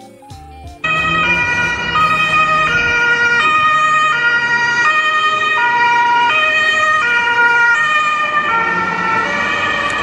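Ambulance two-tone siren, switching between a high and a low tone about every half second. It starts abruptly about a second in.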